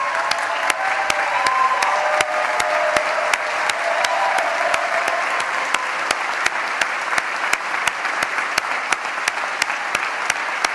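A large crowd applauding steadily, with one pair of hands clapping close by at about three claps a second. Voices cheer over the applause during the first half.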